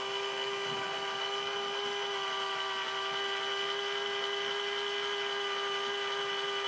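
Small electric drill running with a steady, even-pitched whine as its bit drills out the head of a rivet on a die-cast toy car's base.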